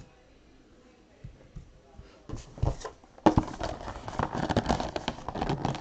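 A small cardboard trading-card box being handled and opened by hand: quiet at first, then a knock about three seconds in followed by steady crinkling and rustling of the packaging.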